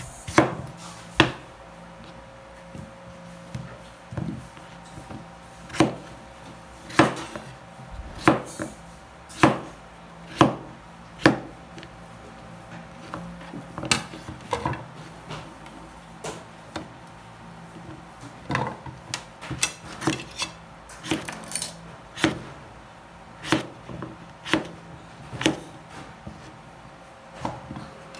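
Kitchen knife chopping squash on a wooden cutting board: irregular sharp knocks as the blade cuts through and strikes the board, sometimes two or three in quick succession.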